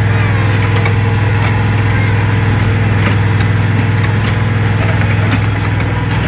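Engine of a trackless park road train running with a steady low drone, heard from one of its towed carriages, with scattered light clicks.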